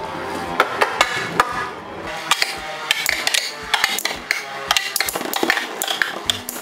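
Two Infinity Nado 3 battle spinning tops spinning in a plastic stadium, knocking against each other and the stadium wall in many sharp, irregular clicks.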